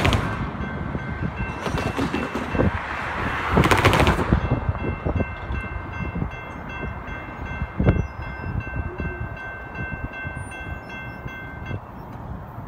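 Railroad grade-crossing warning bell ringing steadily while the gates come down, then stopping about a second before the end. Loud rushes of wind noise come at the start and around four seconds in, and there is one sharp thump near eight seconds.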